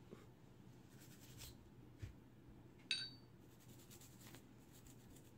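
Faint scratching of a toothbrush's bristles spreading lube over a pistol barrel, with one sharp metallic clink and a brief high ring about three seconds in.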